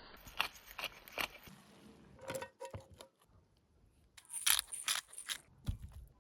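A few sharp clicks and clinks of hard objects, followed by a louder spell of bright scraping and rustling that ends in a dull thump.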